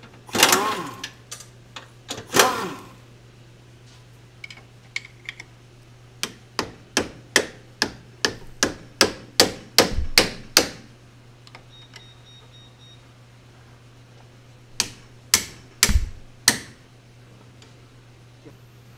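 Hammer blows on an orange-handled steel tool set against a Mazda Miata's differential, metal on metal, to drive the differential loose. Two loud ringing clanks start it off, then a steady run of about a dozen sharp strikes at roughly two or three a second, and after a pause four more strikes.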